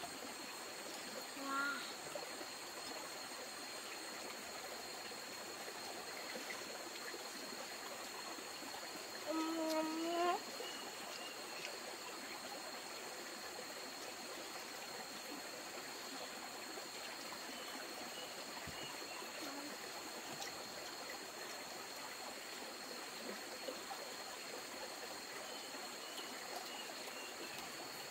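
Steady rush of running water, like a small stream, without a break.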